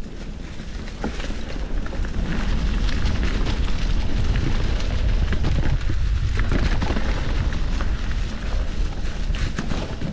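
Wind rumbling on the microphone of a moving mountain bike, with tyres rolling over rough trail and scattered clicks and rattles from the bike. It gets louder about two seconds in, as the bike picks up speed.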